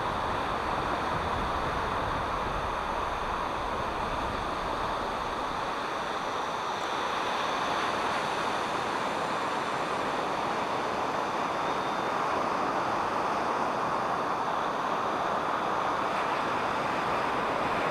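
Steady noise of ocean surf and wind.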